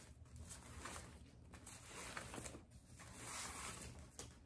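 Faint rustling and crinkling of red gift-wrapping ribbon being handled and spread out by hand, in irregular soft swells.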